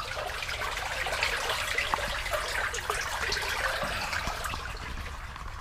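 Irrigation water running and splashing in a ditch, a steady rushing and trickling. This is a reduced flow at the end of the rotation, which the owner blames on an upstream obstruction or leak.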